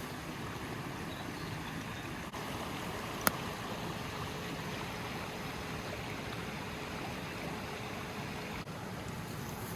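Steady rushing background noise, with one sharp click about three seconds in.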